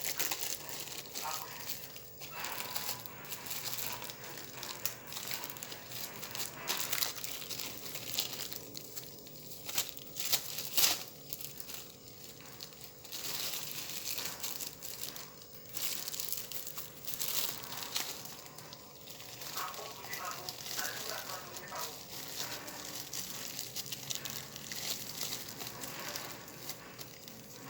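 Plastic wrapping crinkling and rustling in irregular bursts as a jackfruit is wrapped up tight by hand.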